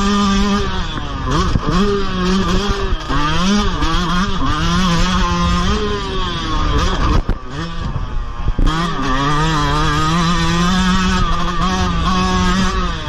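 Motocross dirt bike engine heard up close from the bike itself, revving hard with its pitch rising and falling again and again as the throttle opens and closes through the track, with a brief drop about seven seconds in. Steady wind and dirt noise lies under the engine.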